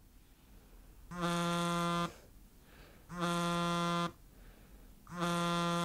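Alarm clock buzzer going off: a low, reedy buzz about a second long, repeated every two seconds, three times.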